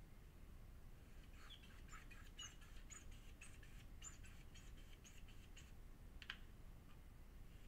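Near silence with a faint low background, broken by a quick run of faint high ticks for a few seconds and one sharper click near the end.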